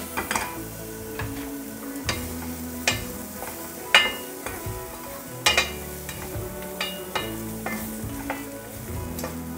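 Chicken bites stir-frying in oil in a stainless steel frying pan, sizzling as they are stirred with a spatula. Sharp clinks of the spatula against the pan come every second or so, the loudest about four seconds in.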